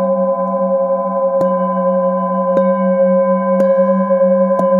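A hand-held metal singing bowl ringing with a steady hum and a low, wavering tone, struck with a wooden mallet four times about a second apart, each strike adding a fresh bright ring.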